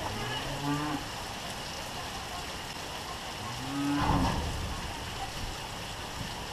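Belted Galloway cattle mooing, two low calls: one at the start and one about halfway through, over steady rain.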